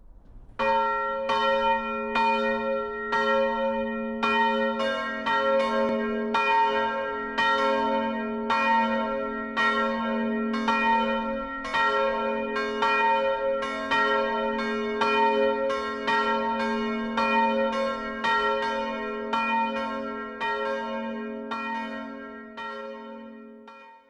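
Church bells ringing, struck about once a second at first, with more strikes overlapping after about five seconds as another bell joins, then dying away near the end. This is the Swedish helgmålsringning, the bell ringing that marks the start of the weekend's holy day at Saturday evening prayer.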